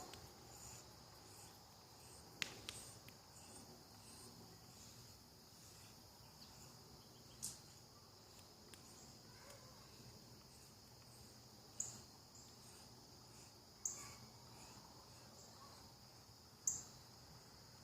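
Crickets chirping steadily in a thin high band, with five sharp cracks or snaps scattered through, which are the loudest sounds.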